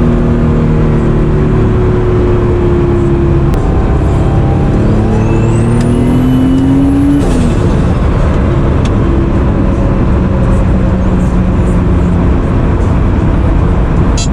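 Turbocharged Acura NSX 3.0 L C30A V6 with a BorgWarner EFR 7670 turbo running under way; about five seconds in it pulls harder, the engine note rising with a high rising turbo whistle, which cuts off suddenly about seven seconds in as the throttle closes, then it settles back to steady running.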